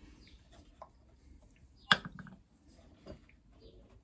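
A small steel screwdriver clicking and scraping against a chainsaw's clutch and sprocket as it is levered at, with one sharp metallic click and a short ring about two seconds in, followed by a few lighter ticks.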